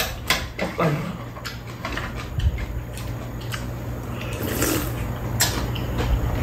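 Eating at a table: scattered clicks and taps of chopsticks and a spoon against bowls and a pan, with chewing, over a steady low hum.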